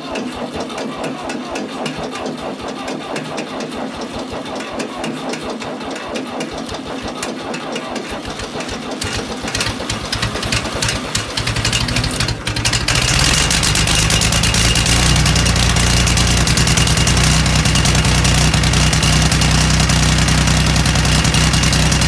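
Allis-Chalmers tractor engine being cranked by its starter in 8°F cold, turning over with an even rhythmic pulse for about twelve seconds. It catches around thirteen seconds in and then runs steadily and louder.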